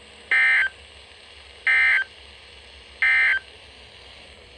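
Three short screeching bursts of EAS/SAME data tones about a second apart over a steady radio hiss: the end-of-message code that closes a NOAA Weather Radio alert.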